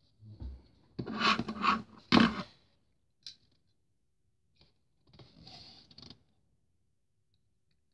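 Clear plastic packaging being handled and crinkled by hand in a few short rustling bursts. The loudest comes about one to two and a half seconds in, with a single click a little after three seconds and another softer rustle around five to six seconds.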